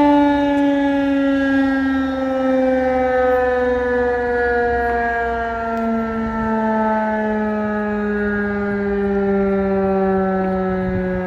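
Federal Signal 2001-130 electromechanical outdoor warning siren winding down at the end of its one-minute alert test. Its single tone falls slowly and steadily in pitch throughout.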